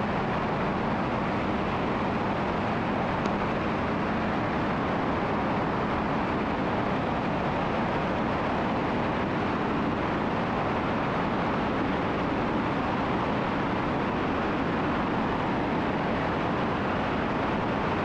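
Steady, even drone of a Cessna T310R's two turbocharged six-cylinder engines and propellers in flight, heard inside the cabin.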